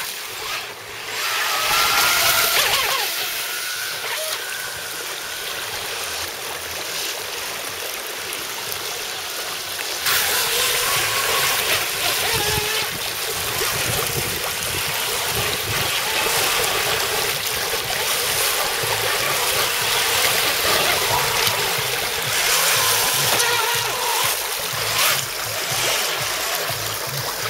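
Rushing water of a shallow rocky stream, with the whine of an RC jet boat's Graupner jet drive rising and falling as the throttle changes, plainest in the first few seconds.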